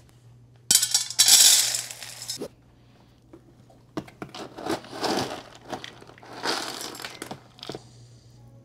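Dry dog kibble poured from a plastic scoop into a stainless steel dog bowl, rattling loudly for about two seconds, followed by several shorter, quieter rattles and scrapes in the metal bowl.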